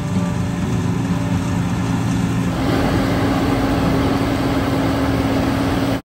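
John Deere combine harvester running steadily at harvest. About two and a half seconds in, the sound changes to a fuller steady hum with more hiss.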